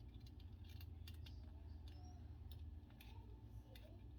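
Faint small metal clicks and taps from handling a Zippo lighter insert and its flint spring, over a steady low hum.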